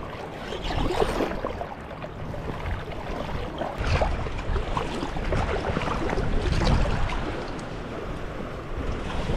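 Water splashing and sloshing as a small hooked striped bass thrashes at the surface in shallow water, with wind rumbling on the microphone.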